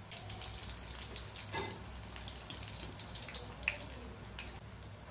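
Pakoras deep-frying in a steel pan of hot oil: a steady sizzle with many scattered small crackles as the batter fries.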